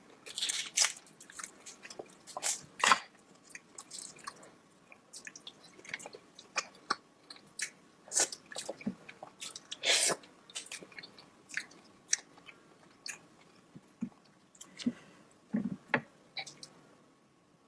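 Close-miked eating of saucy seafood and corn: irregular wet chewing and mouth clicks, with sharper bites and crunches now and then.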